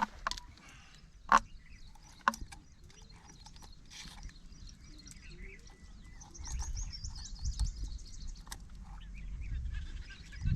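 A few sharp knocks in the first couple of seconds, then a quick run of high, repeated bird chirps about six and a half seconds in over a low rumble.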